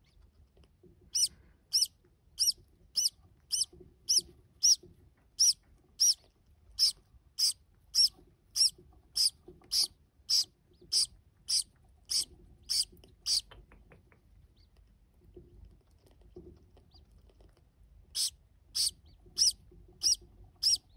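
Green-cheeked conure hatchling peeping steadily, a little under two short high-pitched peeps a second, as its mother feeds it: the chick's food-begging calls. The peeps pause for a few seconds past the middle and start again near the end.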